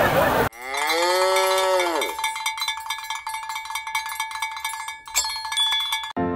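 Cartoon cow sound effects: a long moo that swells and then slides down, followed by a cowbell ringing in rapid strokes for about three seconds, with a sharp metallic hit near the end.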